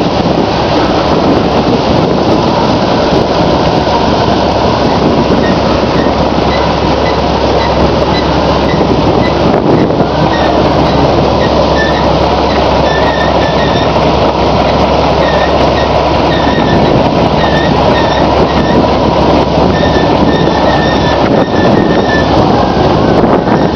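John Deere 4400 combine running steadily and loudly while its unloading auger pours grain into a truck bed. From about six seconds in, a high squeak repeats every half second or so.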